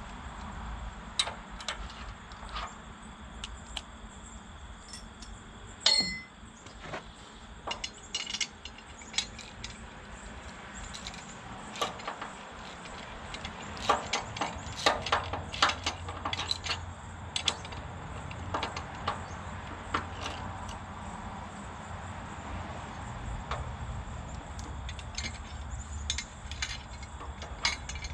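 Scattered metallic clinks and clanks of steel parts and tools being handled. One loud clank about six seconds in rings on briefly, and bursts of quick clinks follow later.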